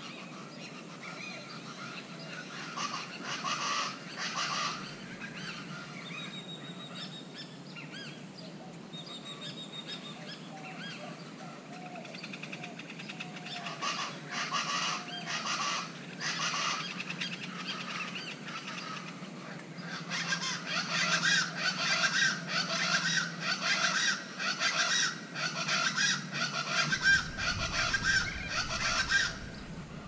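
Plain chachalacas calling in bouts of harsh, repeated calls. The loudest and densest run, about two calls a second, fills the last third.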